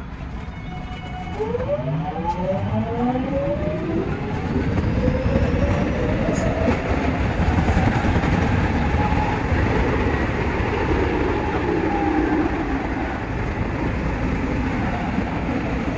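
Train running in a tunnel: a JR West 207 series train's GTO-VVVF inverter traction motors whine in several parallel tones that climb in pitch as it accelerates away from the station. Over a steady rumble of the running gear, the motor tone then swells and falls back.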